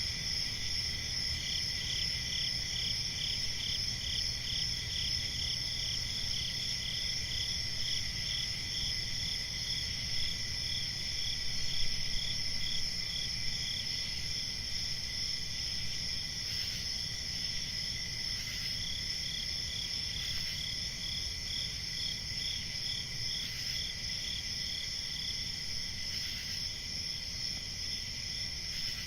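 Nighttime chorus of crickets chirping steadily at several high pitches at once, one of them in quick, even pulses.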